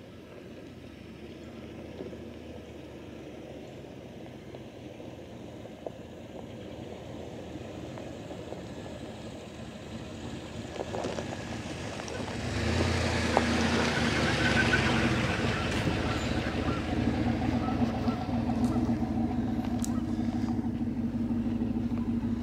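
Cadillac Escalade SUV driving slowly up a rough dirt track, its engine and tyres growing louder as it approaches. From about halfway through it is close and loudest, with a steady engine hum as it passes and pulls up.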